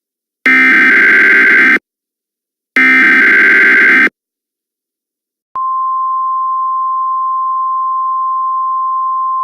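Emergency Alert System signal. First come two harsh, buzzing digital data bursts of the SAME header, each about a second long with a short gap between. Then, about five and a half seconds in, a single steady attention tone just above 1 kHz starts and holds.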